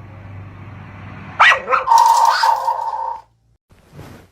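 A dog barks sharply about a second and a half in, then gives a held, steady-pitched call lasting over a second that cuts off suddenly.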